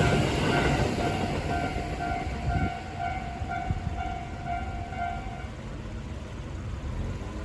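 Tobu Railway electronic level-crossing alarm ringing in a steady repeating ding, about two strikes a second, over the fading noise of a train that has just passed; the bell stops about five and a half seconds in as the crossing clears.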